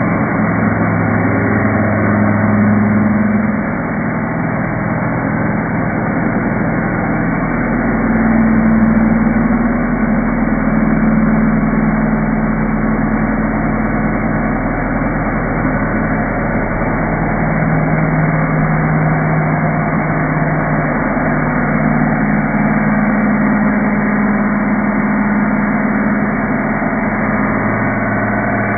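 A motor running steadily, with several humming tones whose pitch shifts slowly every few seconds.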